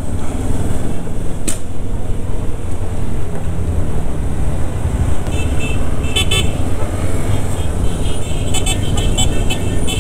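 Motorcycle running at low speed in town traffic, a steady low rumble. From about five seconds in, horns beep in short repeated toots, coming thicker and faster near the end.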